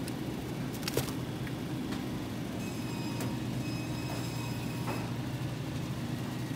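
Steady low electrical hum of refrigerated meat display cases running, with a single sharp click about a second in.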